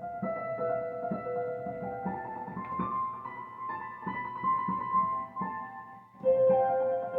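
Semi-ambient electronic keyboard and synthesizer music: held, electric-piano-like notes and a slow melody over a soft, regular low pulse. About six seconds in the sound thins out briefly, then a loud held note comes in.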